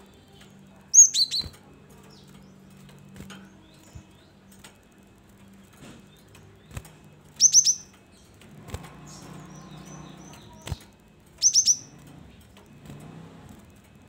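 Cinereous tit (gelatik batu) giving three bursts of quick, sharp, high chirps, three or four notes each: about a second in, about halfway, and near the end. Between the calls there are light taps and flutters as the bird moves about its wire cage.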